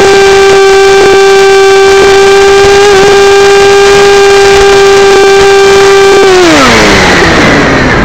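Electric motor and propeller of a Hype DG1001M RC motor glider, heard close up from the fuselage, running with a steady high whine. About six seconds in the pitch falls steeply as the motor is throttled off and the propeller winds down, and the rush of air takes over.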